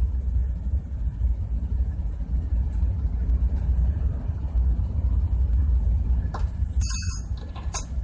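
Steady low rumble in the background. Near the end there are a couple of light clicks from the compressor valve's metal parts being handled.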